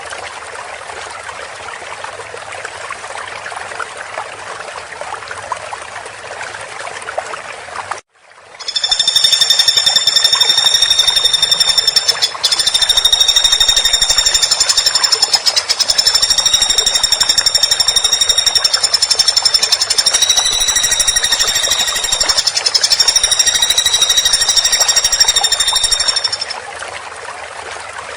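Woodpecker giving a long, very rapid, high-pitched rattling trill. It begins about nine seconds in and goes on for about seventeen seconds, with a short break near twelve seconds. Running water rushes steadily throughout.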